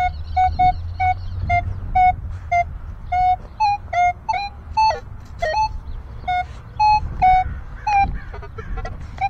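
Metal detector (Minelab Equinox 900) giving short electronic target beeps as the coil is swept, about two to three a second, mostly at one pitch with a few higher or sliding tones, over a steady low rumble.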